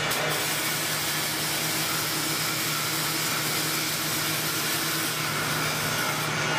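Robotic arc welder running a weld on 3/8-inch 316L stainless-steel bar: a steady hiss of the arc over a low, even hum.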